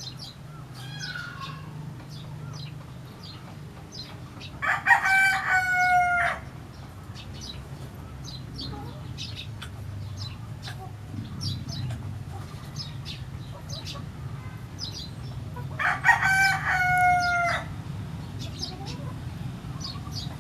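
A rooster crows twice, each crow about a second and a half long, about eleven seconds apart. Many short high-pitched ticks are scattered in between, over a steady low hum.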